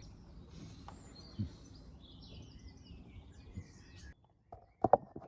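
Birds chirping in the background over a steady outdoor hush, then a few sharp knocks near the end.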